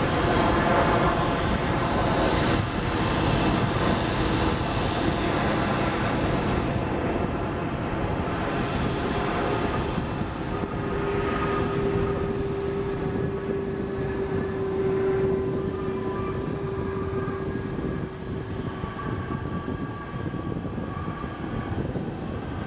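Boeing 767-300ER's twin jet engines running as the airliner rolls along the runway: a loud, steady rush, with a whining tone that comes in about halfway through and fades a few seconds later, the whole sound easing slowly toward the end.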